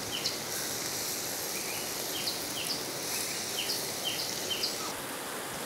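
Golibaje batter balls deep-frying in hot coconut oil in an iron kadai, the oil sizzling with a steady hiss. A bird chirps over it with short falling notes about twice a second, stopping near the end.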